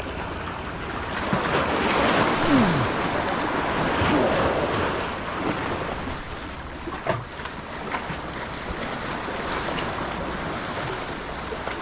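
Sea waves washing against shore rocks, swelling for a few seconds and then easing off, with wind on the microphone.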